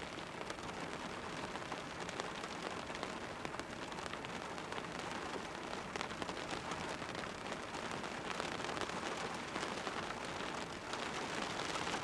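Steady rain pattering on a car roof, heard from inside the car: a dense patter of individual drops ticking on the metal.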